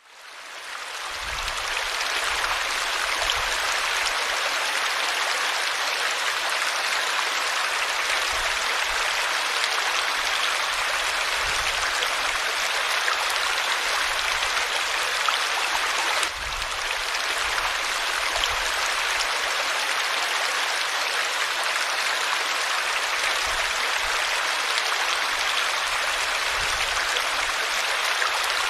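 River water flowing: a steady, continuous rushing. It fades in over the first couple of seconds and dips briefly about halfway through.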